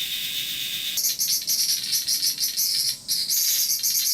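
Robust cicada (minmin-zemi) calling inside a container of helium gas. A steady high hiss gives way, about a second in, to rapid pulsed high-pitched phrases, with a brief break near three seconds.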